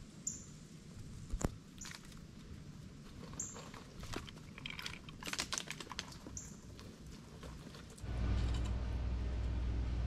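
Scattered small clicks, knocks and scrapes of a red squirrel climbing on a wooden feeder and digging among nuts in a glass jar, with a few short high chirps. About eight seconds in, a steady low rumble starts suddenly.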